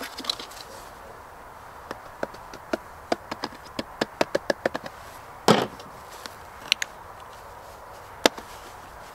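A plastic bucket lid clicking and tapping as a 1.5-inch test cap is pushed and worked into a hole cut in it, so that it sits snug. It is a string of light clicks, with a louder knock about five and a half seconds in and another sharp click near the end.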